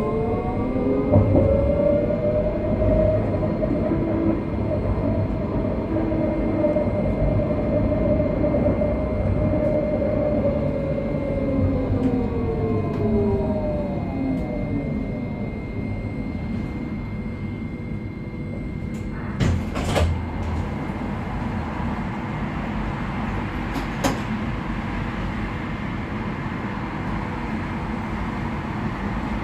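Tram running on rails: a low rumble of the wheels with the traction motors' whine, which rises in pitch as it gathers speed in the first few seconds, holds steady, then falls away about halfway through. Two sharp knocks come later, about five seconds apart.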